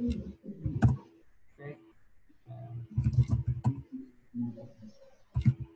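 Indistinct talking in short phrases, with a few sharp clicks of computer keyboard keys being typed.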